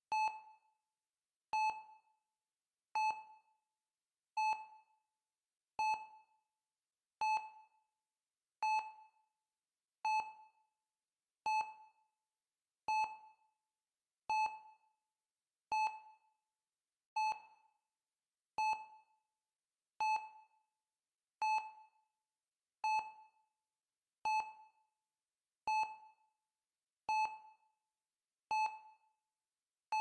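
Heart rate monitor beeping: single short beeps, evenly spaced about one every second and a half, each one dying away quickly.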